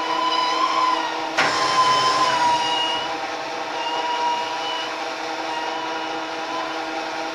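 Machine-tool electric motor running steadily with a slightly wavering whine, and a sharp click about a second and a half in.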